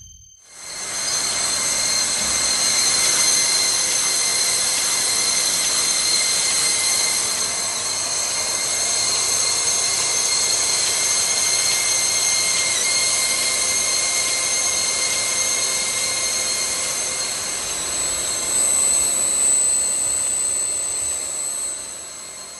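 Heesemann UKP profile sanding and brushing machine running on a test run: a steady rush of motor noise with several high, steady whines on top. It swells slightly near the end, then fades down.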